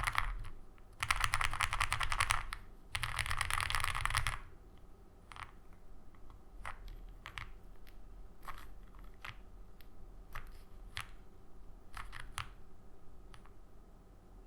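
Mechanical keyboard with lubed Cherry MX Black Hyperglide linear switches on a full aluminium plate, GMK Pixel keycaps and a fully foamed case. Three fast rolls of keystrokes across the home-row keys come in the first four seconds or so. After that come single, quieter key presses, about one every half second to a second, ending shortly before the close.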